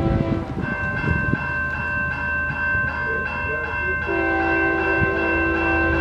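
Approaching CSX freight locomotive sounding its multi-note horn for the crossing: the chord breaks off about half a second in and comes back about four seconds in. Under it a grade-crossing warning bell rings steadily with quick, even strokes.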